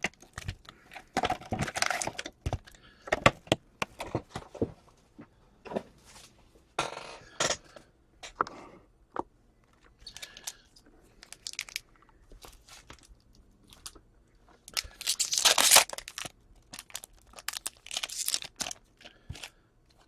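Trading card pack wrappers tearing and crinkling as packs are opened and the cards handled: short rustles and clicks come and go, with a longer, louder tearing rustle about fifteen seconds in.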